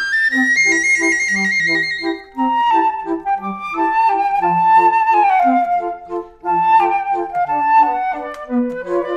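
Background music: a flute-like lead melody with sliding notes over a steady, bouncing bass and chord pattern.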